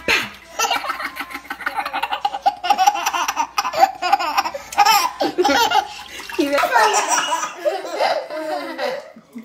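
A baby laughing hard, in long runs of repeated belly laughs.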